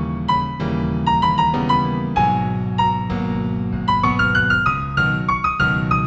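New Age piano music in F major: a slow melody of single notes over sustained low chords, the melody climbing higher about four seconds in.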